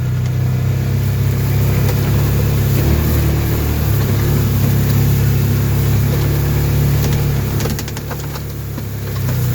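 Engine of a vehicle driving along farm trails, running steadily with a low hum; it eases off about eight seconds in, then picks up again near the end, with a few clicks and knocks just before the drop.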